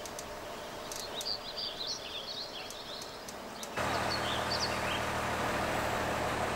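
A few bird chirps over quiet outdoor ambience. About four seconds in, this cuts to the steady running of a truck-mounted crane's engine, a low hum.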